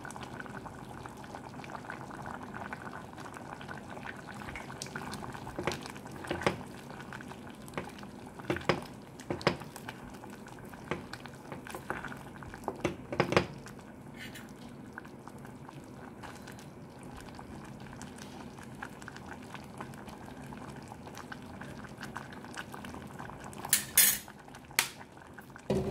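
A pot of mung bean soup boiling steadily, with a wooden spoon stirring and knocking against the side of the stainless steel pot a few times in the first half and again near the end.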